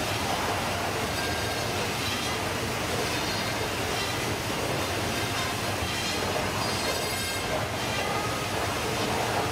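Stainless-steel fish-processing machine and its conveyor running: a steady, dense mechanical din with faint high tones over it.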